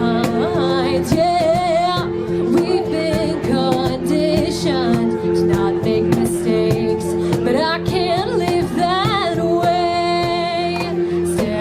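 Live rock band music: a female voice sings a wavering, gliding melody over held chords and guitar.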